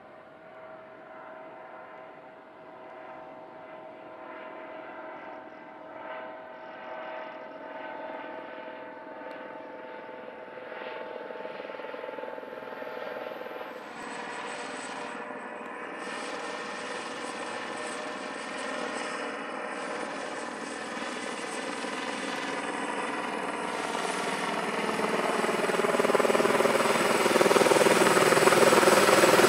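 Airbus Helicopters H130, powered by a single Turbomeca Arriel 2B1 turboshaft, flying by and growing steadily louder as it approaches, with a steady whine over the rotor noise.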